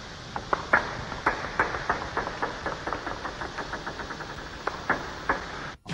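Table tennis balls clicking in a quick irregular run, about three to five a second: bat striking the ball on serve and balls bouncing on the table and the wooden floor during backspin serve practice. The clicks stop abruptly just before the end.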